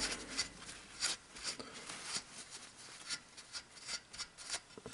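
A series of short, irregular rubbing and scraping strokes as the minibike's engine case is cleaned up by hand.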